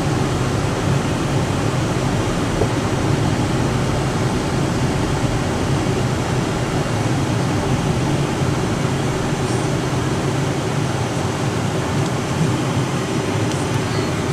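Steady road and engine rumble inside a moving vehicle's cabin.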